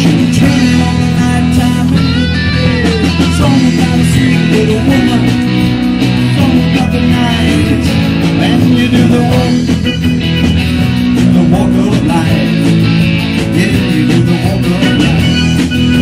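Live rock band playing: electric guitar and bass guitar with a man singing into a microphone, continuous and loud.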